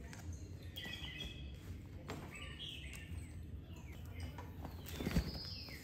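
Several short, high, bird-like chirps, some falling in pitch, over a low steady hum, with a single soft thump about five seconds in.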